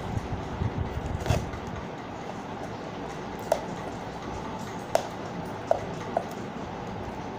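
A foil-wrapped gift box being handled: the wrapping paper crinkles, and a handful of short, sharp clicks and taps come from fingers on the box, spaced a second or so apart.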